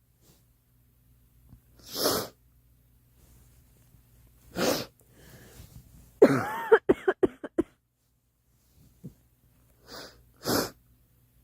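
A girl coughing in fits: a couple of breathy bursts, then a loud cough about six seconds in that breaks into a rapid run of short coughs, and two more breathy bursts near the end.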